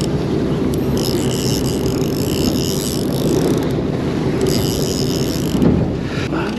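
Fishing boat's engine running with wind and sea noise. Over it, a high-pitched mechanical whirring comes in two stretches, about a second in and again past four seconds, from the reel being cranked as a fish is fought on a bent rod.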